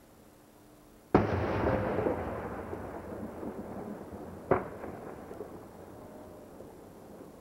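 Aerial fireworks going off: a sharp bang about a second in, followed by a long tail that fades over several seconds, then a second, shorter bang about halfway through.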